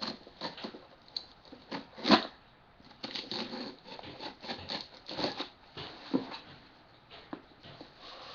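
Cardboard shipping box being opened by hand: irregular clicks, scrapes and rustling, with a sharp crack about two seconds in.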